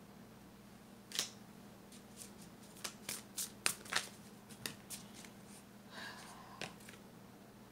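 Tarot cards being handled and shuffled: about a dozen sharp, irregular flicks and snaps of card stock, the loudest near the middle.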